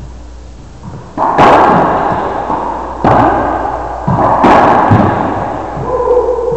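Racquetball rally: several sharp smacks of racquets striking the ball and the ball hitting the court walls, each ringing out in a long echo off the enclosed court.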